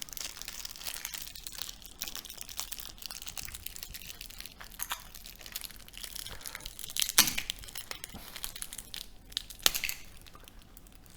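Handling noise from a transformer being taken apart: irregular crinkling of its tape-wrapped windings and small clicks, with two sharper clicks about seven and nine and a half seconds in.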